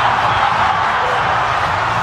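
Large stadium crowd cheering in a steady, dense wall of noise, reacting to the match ending in a tie.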